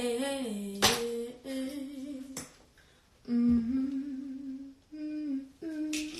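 A woman humming a slow tune in short held phrases with pauses between them. A few sharp clicks are heard between the phrases.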